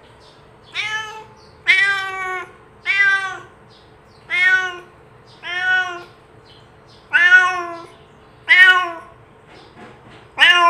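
Domestic cat meowing repeatedly: about eight short meows, each rising then falling slightly in pitch, coming every second or so, with a shorter, fainter one near the end.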